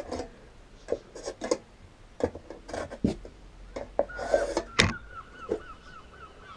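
Scattered light clicks and knocks of hand work on the caravan's cupboard panel. From about four seconds in, a faint, high wavering tone joins them.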